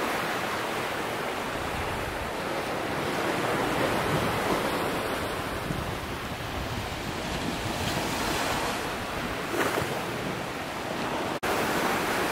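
Ocean surf washing up a sandy beach, a steady rushing that swells and eases, briefly dropping out for an instant near the end.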